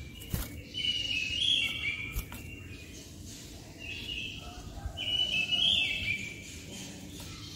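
White-rumped shama (murai batu) singing bursts of clear, quick phrases, once about a second in and again from about four to six seconds in.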